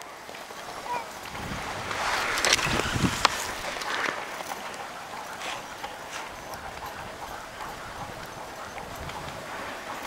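Dog sled gliding over snow behind a running husky team: a steady hiss from the runners, louder for a couple of seconds early in the stretch, with a few short clicks and knocks.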